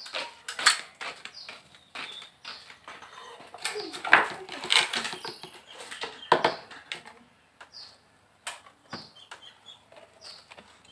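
Clicks, knocks and scraping of a plastic dipper being handled and stirred while detergent is mixed with water, the loudest knocks in the middle; a few faint bird chirps in the second half.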